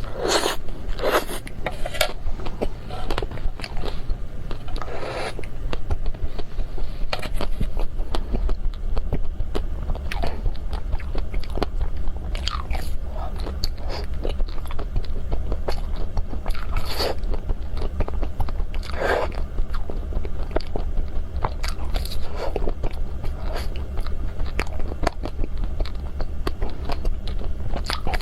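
Close-miked biting and crunching into the crisp chocolate shell of a Magnum-style ice cream bar, with chewing between bites. The crunches come irregularly, a second to several seconds apart.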